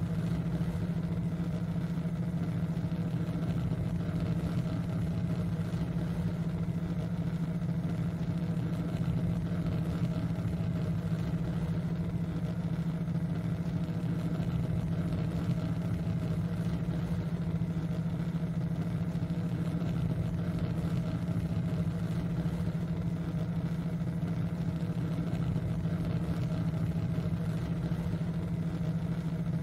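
Steady synthesized drone from a binaural theta-wave tone track: a loud, unchanging low hum with fainter steady tones higher up over a soft hiss.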